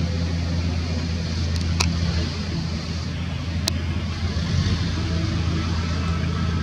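A steady low engine drone with a broad hiss over it, and two sharp clicks about two and four seconds in.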